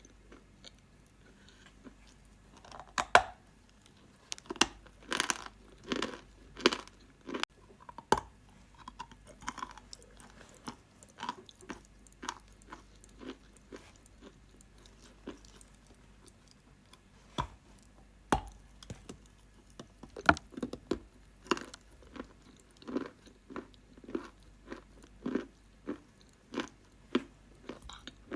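Close-up crunching of a person biting and chewing dry edible chalk: sharp snapping bites, the loudest about three seconds in and again near eight and twenty seconds, between runs of smaller crunches from the chewing.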